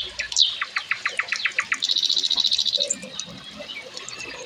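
Borneo forest birds calling: sharp falling whistles, then a quick run of about ten short notes, then a buzzy trill about two seconds in, fading to a softer chorus of chirps.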